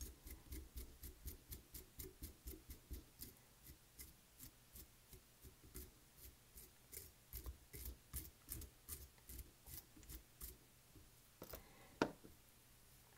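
A small brush stroked quickly and repeatedly through the polar chenille and rabbit-strip fibres of a streamer fly in a vise, about three scratchy strokes a second, stopping shortly before the end. Near the end comes a single sharp tap, the loudest sound.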